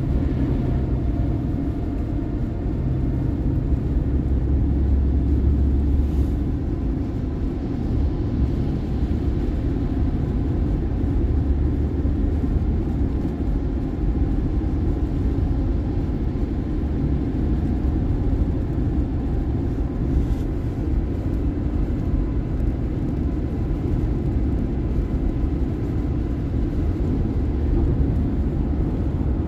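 Car driving on a highway: a steady low rumble of road and engine noise that holds even throughout.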